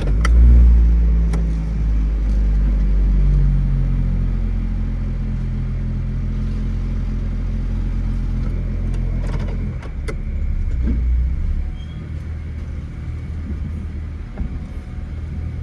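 Honda Fit's 1.3-litre L13 four-cylinder engine running at low speed with a steady hum, swelling briefly right at the start and dropping lower about ten seconds in.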